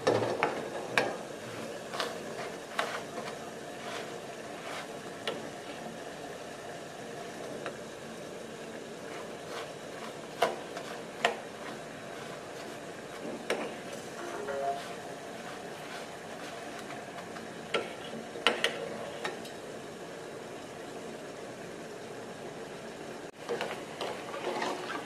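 Metal spoon stirring and knocking against a steel bowl of melting chocolate, sugar and margarine set over a pot of hot water, in scattered irregular clinks over a steady background hiss.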